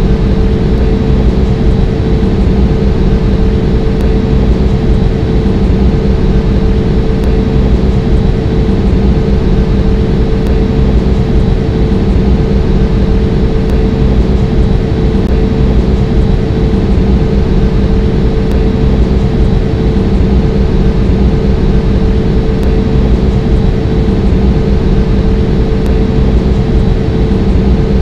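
Steady drone of an Airbus A320 airliner heard from aboard: a constant low rumble with a steady hum that does not change.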